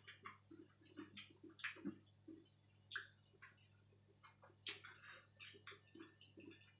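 Faint chewing and wet mouth clicks of someone eating spicy spaghetti, with soft low pulses about two to three times a second and scattered sharp ticks over a low steady hum.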